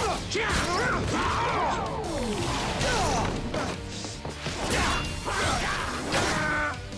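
Fight-scene sound effects: a rapid series of hits, clashes and swishes layered over action background music.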